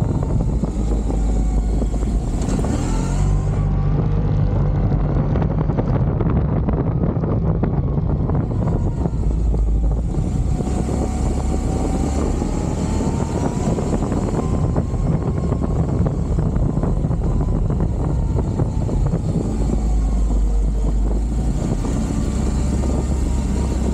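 CFMOTO CFORCE 850XC ATV's V-twin engine running under way, its pitch rising and falling as the throttle and speed change.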